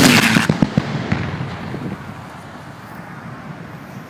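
Airshow pyrotechnic wall-of-fire detonation, about 2,000 feet long: a sudden loud blast, a string of sharp cracks over the first second, then a rumble that slowly fades.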